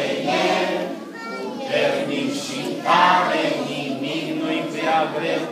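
A group of children singing a worship song together, unaccompanied, with a man leading them.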